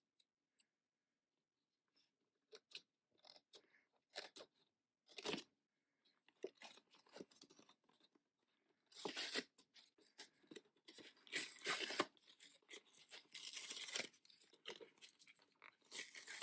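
Cardboard packaging of a toy blind box being cut with scissors and torn off. A few scattered snips and crackles come first, then longer bursts of tearing and crinkling from about nine seconds in.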